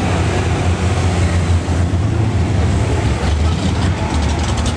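Vehicles driving slowly past close by, among them a military six-wheel cargo truck, making a steady deep engine rumble.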